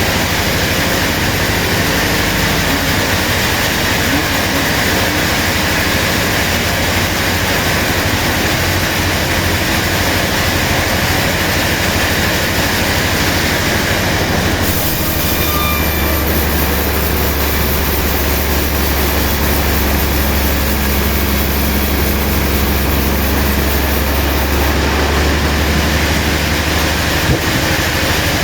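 Sawmill machinery running, a loud steady mechanical noise. About halfway in, a deeper hum and a higher hiss come in for around ten seconds.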